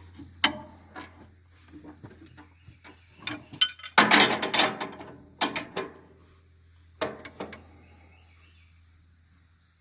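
A run of sharp mechanical clicks and knocks, with a dense clatter about four seconds in and a few more knocks around seven seconds, then it falls quiet.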